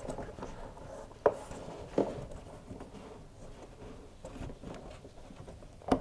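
Faint handling noise as the ribbed rubber drive belt of an LG tumble dryer is worked by hand over the motor spindle: light rubbing and scraping, with two short knocks between one and two seconds in.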